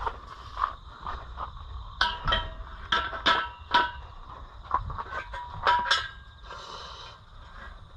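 Irregular metallic clinks and rattles, a dozen or so in a few seconds, each ringing briefly, over a faint steady high-pitched tone.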